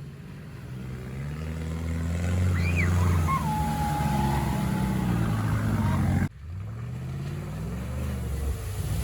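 Off-road 4x4's engine revving up and down, with the note breaking off abruptly about six seconds in. A thin high whine sweeps up and then holds steady for a few seconds in the middle.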